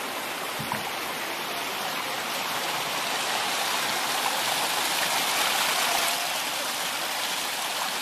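Running spring water: a steady rushing splash that swells a little louder about halfway through.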